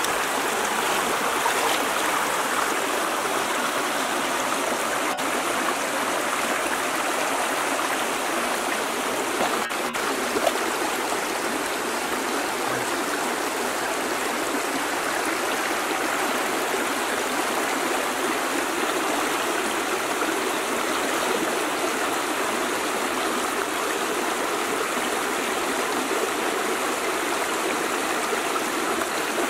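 Shallow rocky stream running steadily, water rushing and splashing over stones, with a couple of faint clicks about five and ten seconds in.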